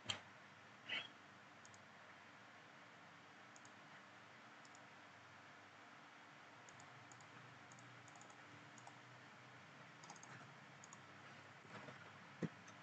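Faint computer keyboard typing: scattered light key clicks over near-silent room tone, with a sharper click near the end.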